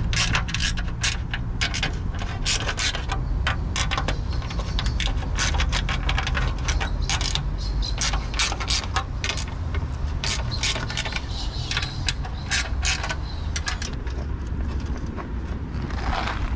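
Rapid, irregular clicking and rattling of nuts and bolts being fastened where new wooden slats meet a cast iron bench frame, over a steady low rumble.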